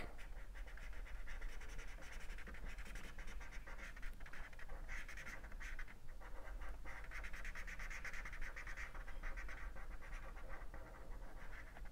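Felt-tip marker scratching back and forth on paper as an area is shaded in, a faint rasp of repeated strokes that comes and goes.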